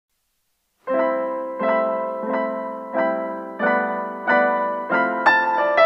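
Background piano music. It starts about a second in after silence, with a chord struck about every two-thirds of a second.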